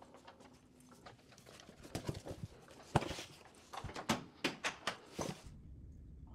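A run of sharp clicks and knocks from a front door being handled and shut, its lever handle and latch clicking, followed by a quicker series of hard footsteps on a wooden floor. The loudest single knock comes about three seconds in.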